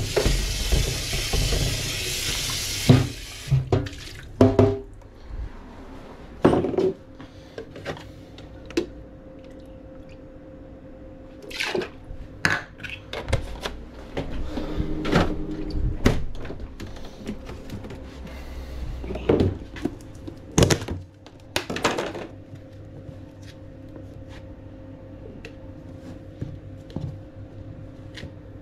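Tap water running hard into a plastic blender jug for about three seconds, then a long stretch of scattered knocks and clatters as kitchen containers are handled and set down, over a steady low hum.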